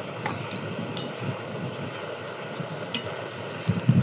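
Metal spoon clinking a few times against a metal mixing bowl while stirring batter, over a steady background hiss.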